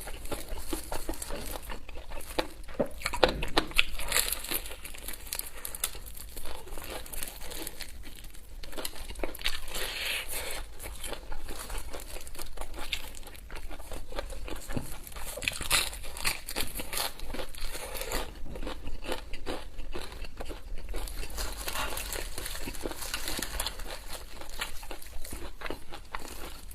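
Crinkling and crackling with tearing, as an ordered fried chicken and its wrapping are handled and pulled apart. It is made of dense, irregular crackles that go on throughout.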